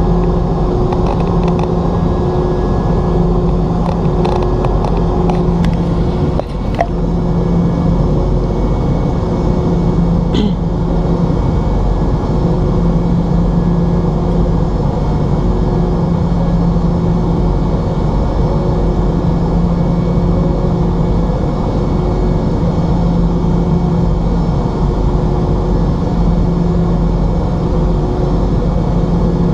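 Boeing 717 cabin noise from its rear-mounted Rolls-Royce BR715 turbofans: a steady rumble with a hum that swells and fades every few seconds. A brief click sounds about six seconds in.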